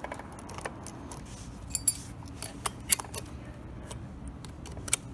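Scattered light metallic clicks and clinks of a Stihl MS 461 chainsaw's chain and guide bar being handled and worked off the saw body, with a few sharper clicks in the middle.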